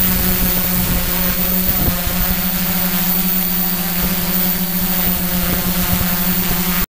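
Quadcopter's electric motors and carbon-fibre propellers running in flight, heard up close from the drone's onboard camera: a steady hum with a rushing noise of prop wash and wind. It cuts off abruptly near the end.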